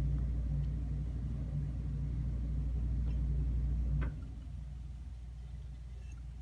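A steady low hum with a faint pulsing tone above it, which cuts off with a faint click about four seconds in.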